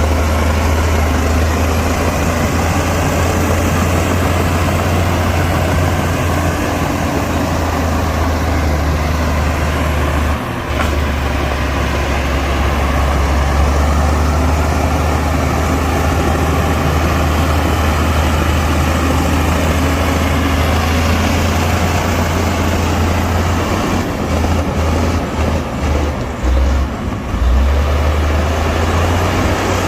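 Heavy diesel earthmoving machinery running steadily with a deep, loud engine note. The sound drops out briefly about ten seconds in and falters unevenly for a few seconds near the end.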